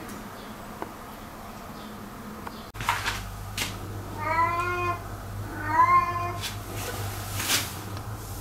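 A cat meowing twice in quick succession, each meow a short, slightly arching call, with a few short hissy noises before and after.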